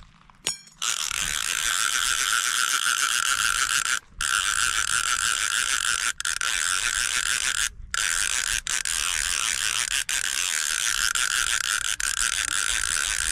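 Fishing reel being cranked to wind in line, its ratchet clicking rapidly and continuously, bringing in a small crucian carp. The winding stops briefly a few times.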